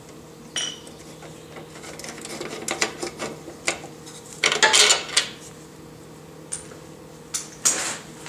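Metal clinks and light rattles of a ratchet, socket and extension being handled as a long bolt is drawn out of a Briggs & Stratton mower engine's carburetor mounting. A denser, louder run of clinks comes about halfway through.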